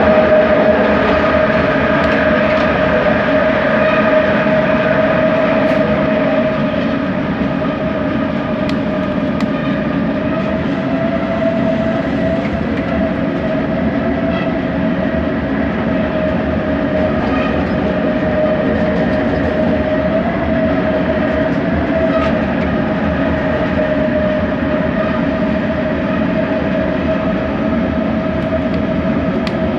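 Bombardier Innovia ART 200 light-metro car running along the track, heard on board: a steady motor whine over the rumble of the wheels, a little louder in the first few seconds.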